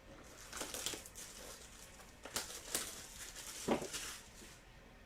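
Trading-card pack wrappers crinkling and tearing as packs are ripped open, in several short bursts, with one louder rustle a little under four seconds in.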